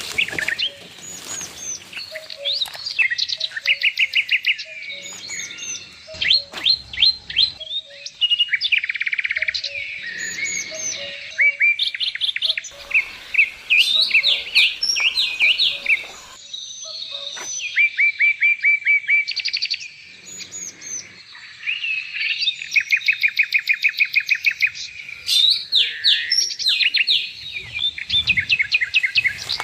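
Small birds singing, with fast runs of repeated high chirping notes, each run lasting a second or two, following one another with short gaps.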